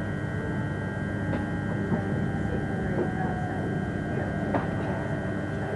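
Class 357 electric multiple unit running, heard from inside the carriage: a steady hum with several steady high whining tones over the low rumble of the wheels on the track, and a few light clicks.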